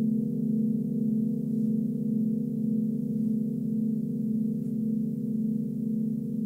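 Forged Nepalese singing bowls ringing together in a sustained, steady hum of several low tones, with a slow pulsing waver of about two beats a second.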